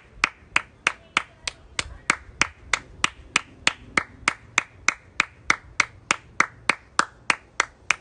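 One person clapping their hands in a steady, even rhythm, about three and a half sharp claps a second.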